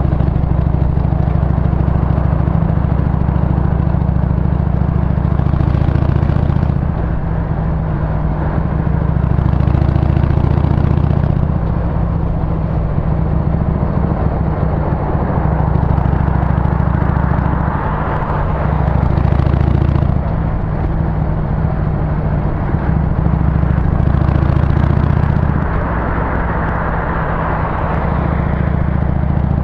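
Harley-Davidson Sportster 883's air-cooled V-twin running under way, heard from the rider's seat. The exhaust note drops back and picks up again about five times as the bike shifts and rolls on, over a changing rush of wind and road noise.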